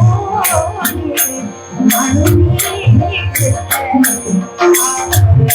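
Devotional bhajan music: small hand cymbals struck in a steady rhythm with ringing high tones, over a drum and a wavering melody.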